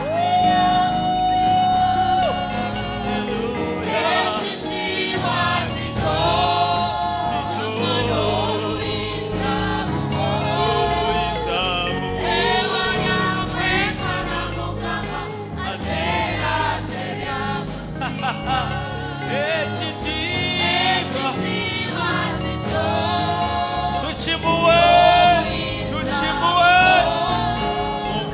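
Gospel worship song sung by a choir with instrumental backing, with a long held sung note near the start.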